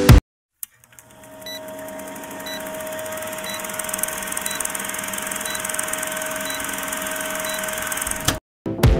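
Film-countdown sound effect: an old movie projector running with a steady hiss and hum, and a short blip once a second as the numbers count down. It fades in, then cuts off suddenly near the end.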